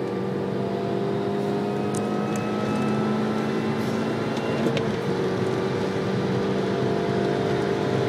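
A Mini Cooper S R53's supercharged 1.6-litre four-cylinder engine pulling under hard acceleration at high speed, heard from inside the cabin. Its steady note climbs slowly in pitch, with one brief break partway through.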